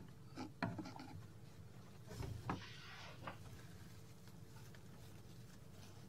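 Faint clicks and a short rustling scrape about two seconds in, from a wooden bi-fold door being moved slightly on its bottom pivot.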